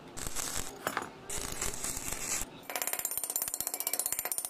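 Metal clinking and scraping twice, then a rapid, even metallic rattle for about two seconds, starting a little past halfway, like a ratcheting hand tool.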